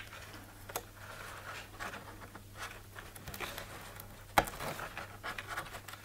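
Fingers working a display cable's connector loose under the lifted screen of an opened iMac: faint scratching and rubbing, with a small click just under a second in and a sharp click about four and a half seconds in.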